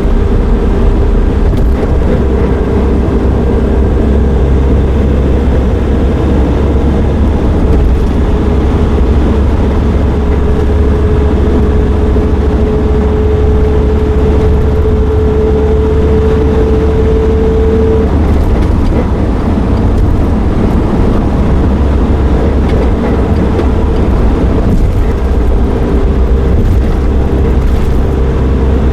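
Nissan NV350 Caravan van running, a steady low rumble with a hum that slowly rises in pitch in the middle stretch.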